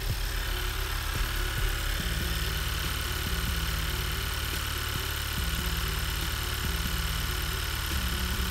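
Honda Civic Type R's 2.0-litre turbocharged four-cylinder idling steadily while its freshly refilled cooling system warms up and burps air out through the filler funnel.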